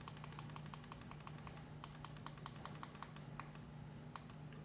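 Rapid clicking of a digital alarm clock's button being pressed over and over to step the alarm time up a minute at a time, about five clicks a second, slowing to a few separate clicks near the end.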